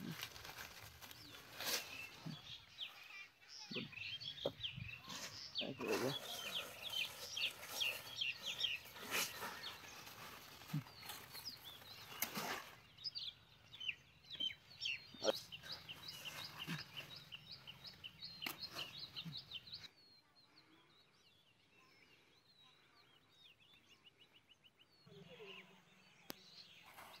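Small birds chirping in quick repeated calls, over the rustling and snapping of cucumber vines and leaves as the fruit is picked by hand. It all turns quieter about two-thirds of the way through.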